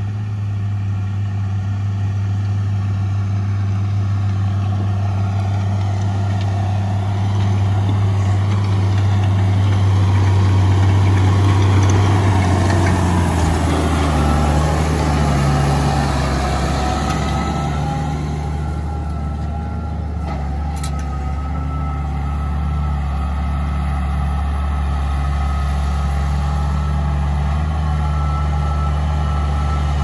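Case IH Magnum 7240 Pro tractor's diesel engine working steadily as it pulls a Kuhn Venta AL402 seed drill through the field, growing louder as it comes closer and dropping in pitch as it passes about halfway through. After the pass a steady higher whine from the tractor and drill carries on.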